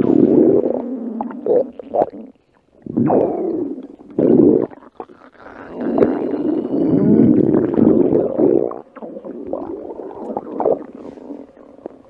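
Loud stomach rumbling and gurgling, coming in a run of growling bursts with brief lulls between, the longest stretch about halfway through.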